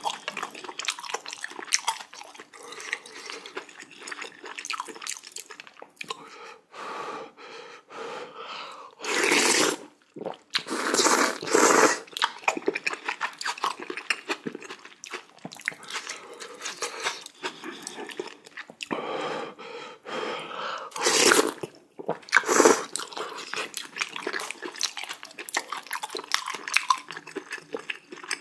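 Close-miked eating of spicy jjamppong noodle soup with kimchi: continual chewing and crunching, broken by a few louder slurps of about a second each, around a third of the way in and again after two thirds.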